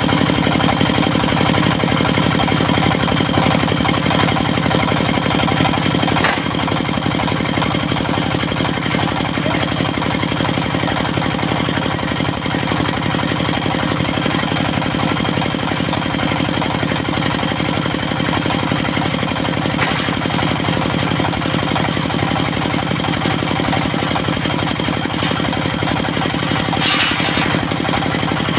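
Diesel engine of a portable circular-saw sawmill running steadily. The level drops slightly about six seconds in, and a brief higher-pitched sound comes near the end.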